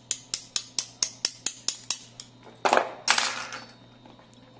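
Light metallic taps, about four a second, as the trigger pin is worked out of a Rossi Gallery .22 rifle's trigger housing, followed a little later by a louder scraping clatter of small steel parts.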